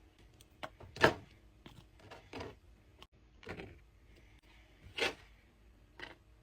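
Knife cutting fruit on a cutting board: about seven irregular knocks and clicks.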